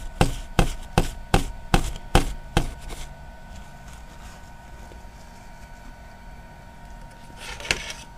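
A quick run of about seven sharp knocks, roughly two and a half a second, over the first three seconds, from hard laptop parts being worked on the bench. Then a single click near the end.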